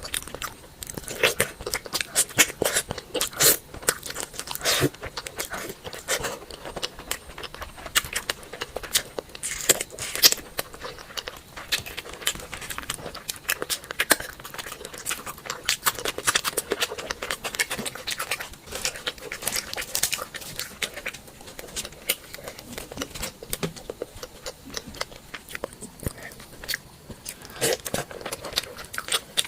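Close-miked eating: irregular bites, crunches and chewing, with many sharp mouth clicks.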